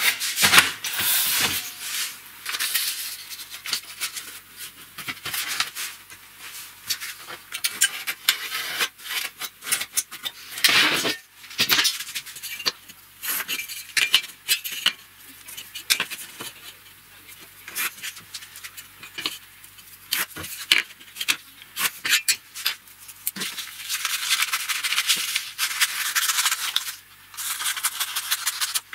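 Workbench handling noise: a thin galvanized steel sheet rubbed and pressed flat by hand, then a pen and steel ruler on paper and scissors cutting paper. A steady run of small clicks, taps and rubbing, with a longer stretch of scraping and cutting near the end.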